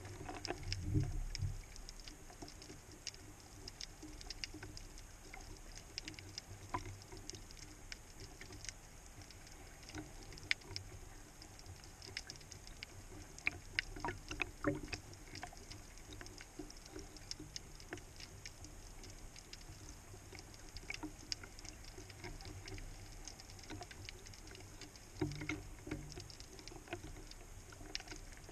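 Underwater ambience picked up through a camera housing: a constant scatter of sharp, irregular clicks and crackles over a low rumble. A few dull low thumps and swishes of water against the housing come about a second in, about halfway through and near the end.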